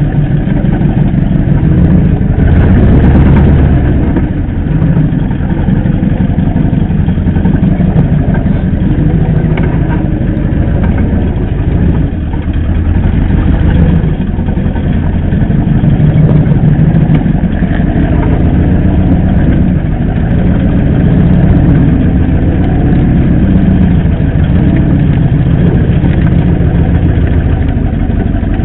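Mercedes-Benz G-wagen engine running at low revs while the truck crawls over rough off-road ground, heard as a loud, steady low rumble that swells and eases a little. Picked up from a camera mounted under the body beside the front wheel.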